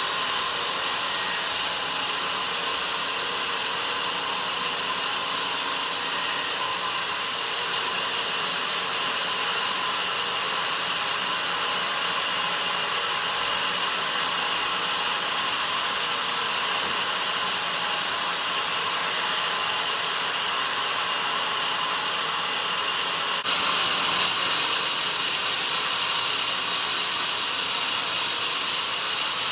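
Sawmill band saw cutting through a log, a steady high-pitched whine of blade in wood. It turns sharper and a little louder near the end.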